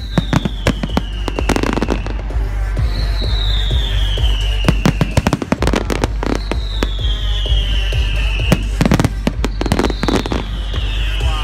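Fireworks display: a dense run of shell bursts, sharp bangs and crackles coming thick and fast. Over them a high tone falls in pitch for about two seconds, recurring roughly every three seconds.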